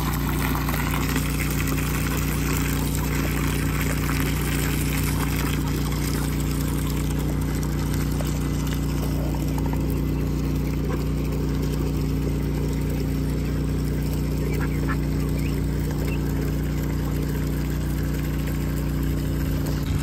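Domestic ducks quacking now and then over a steady low engine-like hum that runs throughout.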